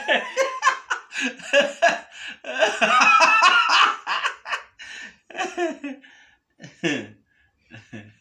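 Two men laughing hard in repeated bursts, which thin out after about four seconds into a few scattered chuckles.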